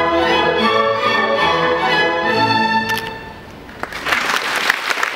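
Symphony orchestra, led by the strings, playing the closing bars of a piece, which end about three seconds in. About a second later, audience applause breaks out.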